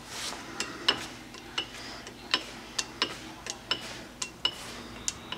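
A string of sharp metallic clicks and ticks, irregular at about two to three a second, many with a brief high ring.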